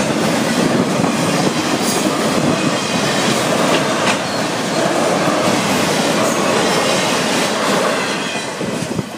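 Freight train of autorack cars rolling past: a steady rumble and wheel clatter on the rails, which falls off quickly near the end as the last car goes by.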